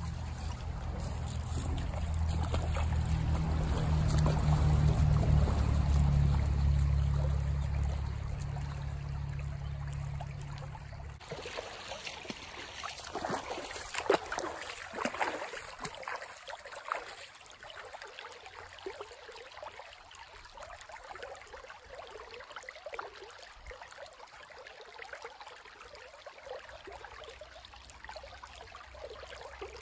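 Shallow creek water running over a rocky bed, with a heavy low rumble during the first ten seconds or so. Bare feet then splash through the water several times, loudest about fourteen seconds in, before the water fades to a faint, steady trickle.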